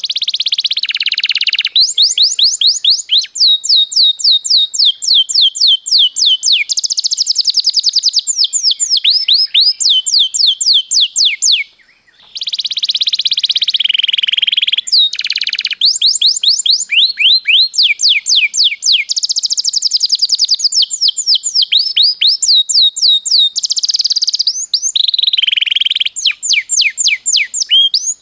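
Domestic canary singing long rolling trills: fast runs of repeated downward-sweeping notes, one run after another, with a brief pause about twelve seconds in.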